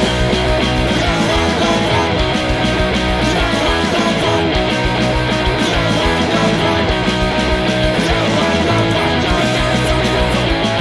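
Loud rock music, guitar-led with a punk feel.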